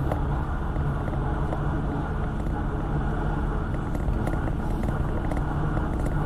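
Car driving along a road: a steady rumble of engine and tyre noise.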